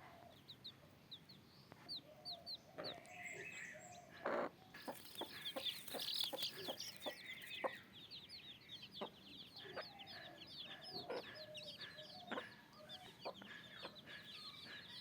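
Desi (native) chickens clucking, with many rapid high-pitched chirps and scattered sharp taps, busier from about four seconds in.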